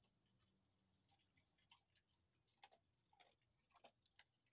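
Near silence: room tone with faint, scattered small clicks and ticks, more frequent in the second half.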